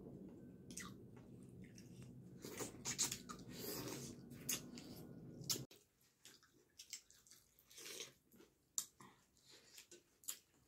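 Close-up eating sounds of two people eating chicken curry and dhido by hand: chewing and mouth smacks in many short, irregular clicks, with fingers squishing through the wet food. A steady low background hum stops abruptly a little past halfway.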